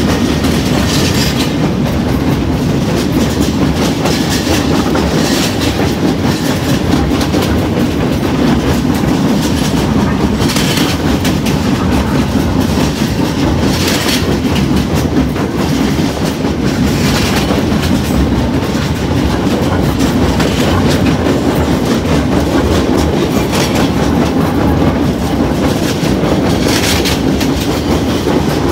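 Passenger train running along the line, heard from a carriage window: a steady, loud rumble of the wagons on the rails, with louder clattering every few seconds.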